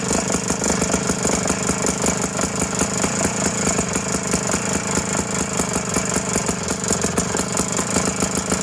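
Tecumseh 3-horsepower two-stroke engine on an old Hofco ice auger running steadily with a rapid, even firing beat. Its carburetor runs on a hardened diaphragm that was softened by soaking in brake fluid.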